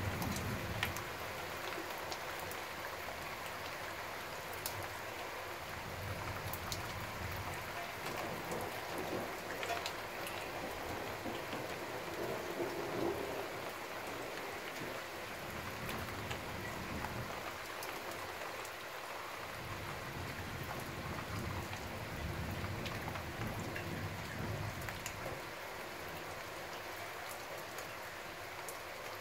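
Steady heavy rain falling on the street and nearby surfaces, with close drops ticking sharply. Low rumbles of distant thunder swell and fade several times.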